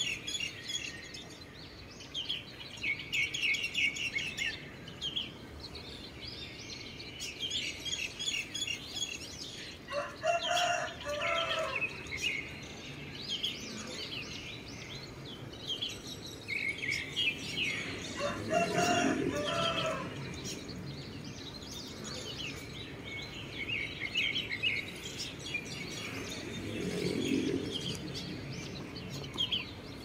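Small birds chirping and trilling on and off throughout, with a rooster crowing twice: about ten seconds in, and again some eight seconds later.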